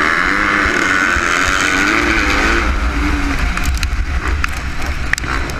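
Motocross bikes launching off the start at full throttle, the nearest engine's pitch rising and dipping through the first seconds. After about three seconds the engine note eases and wind rumble on the microphone takes over, with scattered sharp ticks.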